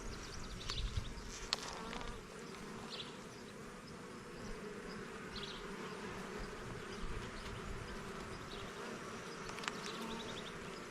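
Honeybees buzzing steadily around an opened hive during a frame inspection, a colony more active and restless than usual for it. A few light clicks come near the start and again near the end.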